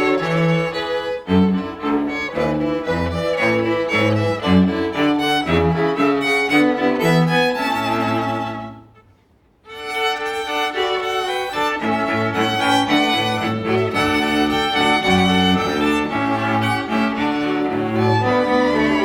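A string ensemble of violins and cello playing a piece over a moving low bass line. About halfway through the music breaks off for roughly a second of near silence, then starts again.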